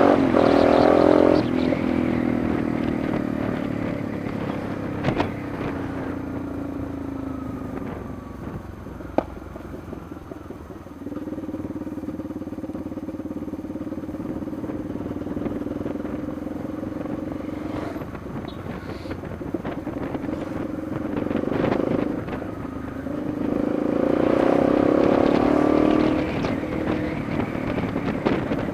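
Yamaha Lander 250 single-cylinder four-stroke motorcycle engine under way, with the revs rising and falling: it pulls hard near the start and again about three-quarters through, eases off to its lowest a third of the way in, and holds a steady cruise in between. A few sharp clicks stand out.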